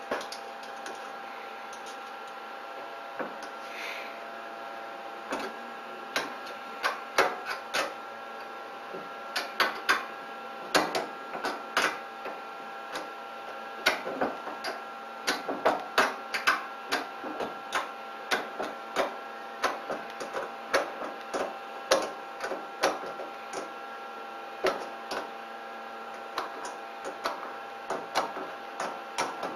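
Irregular sharp clicks and taps of small metal parts and screws as a 3D printer's filament feeder, a stepper-motor extruder, is fitted and screwed onto the printer's back. They come in quick runs, busiest through the middle and later part, over a steady hum with several thin whining tones.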